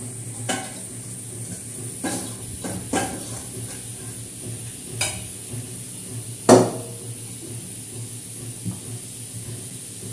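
Spoon scraping and knocking against a stainless steel kadai as cooked sabudana khichdi is scooped out, with about half a dozen separate metal clinks. The loudest is a ringing clang about six and a half seconds in.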